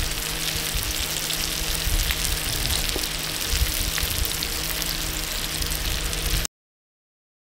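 Shrimp sizzling in a pan of bubbling oil over charcoal: a steady hiss with small pops and crackles. It stops abruptly about six and a half seconds in.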